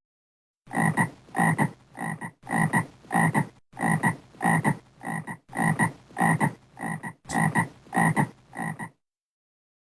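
Frog croaking over and over, about two short croaks a second, starting about a second in and stopping near the end.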